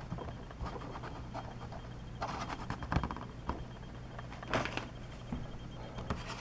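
Quiet handling noise: brief scrapes and light taps as small plastic mini football helmets are moved about on a tabletop, over a steady low hum.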